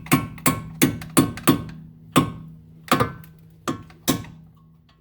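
A hammer striking the steel rear knuckle and strut bottom about nine times, fast at first and then more slowly, each blow ringing metallically. The blows are meant to drive the rusted strut out of the knuckle.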